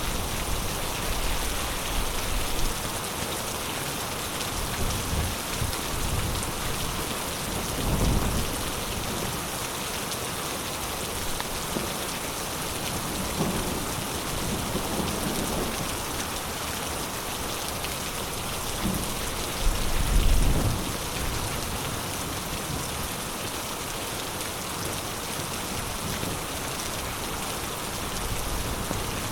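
Heavy rain pouring steadily in a thunderstorm. Low rumbles of thunder swell up about eight seconds in and again, louder, about twenty seconds in.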